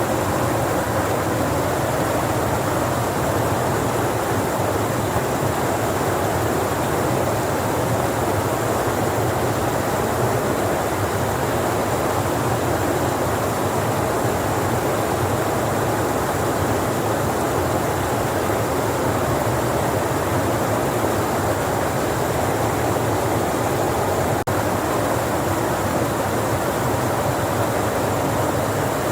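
Steady rushing noise of a waterfall close by, mixed with the airflow and propeller noise of an FPV racing drone flying through it.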